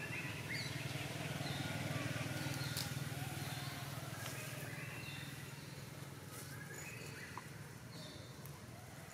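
Outdoor forest ambience: scattered short bird chirps over a steady low hum that slowly fades toward the end.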